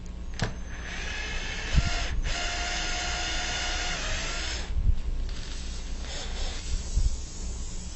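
Small power drill running steadily for about four seconds, then stopping abruptly, as it removes the object stuck in the tire. A sharp click comes just before it starts.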